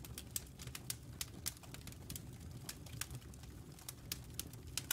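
Wood fire burning in a fireplace stove: irregular crackles and snaps, several a second, over a low steady rumble of the flames.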